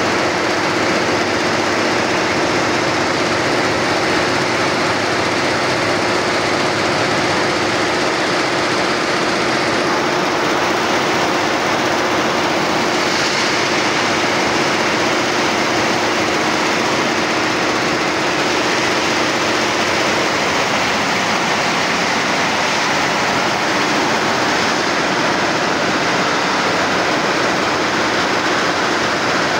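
Multi-head computerized embroidery machines running, a loud, steady mechanical clatter of many stitching heads. A steady hum under it stops about two-thirds of the way through while the clatter carries on.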